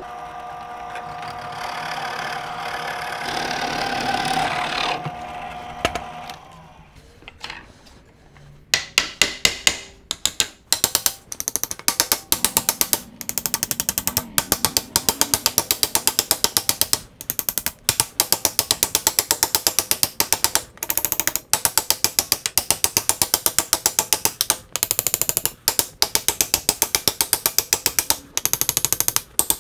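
A drill press runs and bores into a wooden wheel felloe, winding down about six seconds in. From about nine seconds on, a hammer knocks in quick runs of taps as the felloes are driven onto the spokes of a wooden wagon wheel.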